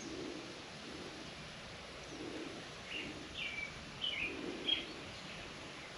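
Quiet open-air background with four short, falling bird chirps in the second half.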